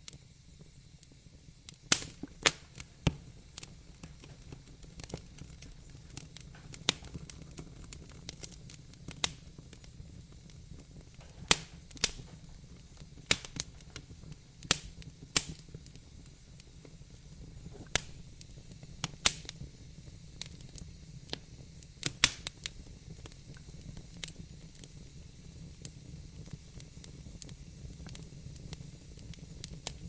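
Wood fire in a fireplace crackling: irregular sharp pops and snaps, some loud, every second or two, over a low steady rumble.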